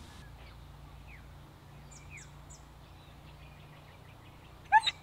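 A few faint bird chirps over quiet outdoor background, then near the end a dog gives a sharp, high-pitched yip.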